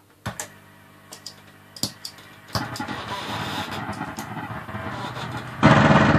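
Dingwall NG-2 electric bass played through distortion and effects pedals: a few sharply picked notes, then a sustained, gritty droning texture that thickens. Near the end a much louder burst of harsh distortion comes in suddenly, then cuts off.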